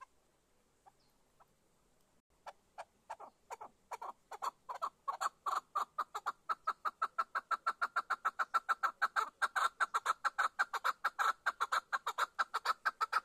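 Caged chukar partridge calling: a few spaced clucks about two seconds in, quickening and growing louder into a fast, even run of several clucks a second that stops abruptly at the end.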